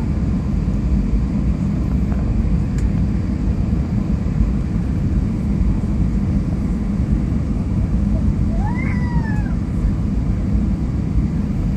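Steady low rumble of cabin noise inside a jet airliner descending on approach for landing. About nine seconds in, a single short high cry rises and then falls over it.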